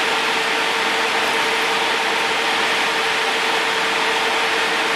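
A small motor or blower running steadily: an even whoosh with a constant hum.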